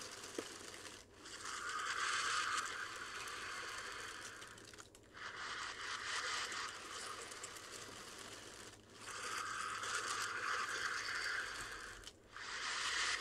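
Slow, deep breaths in and out of a plastic bag held over the nose and mouth, the thin plastic crinkling as it fills and empties; each breath lasts a few seconds with a short pause between. The same air is being rebreathed, so the blood oxygen is dropping.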